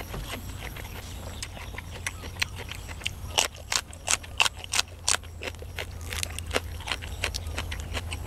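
Crisp crunching as a raw green vegetable stalk is bitten and chewed, a quick run of sharp crunches from about three to five seconds in and a few more later, over a low steady rumble.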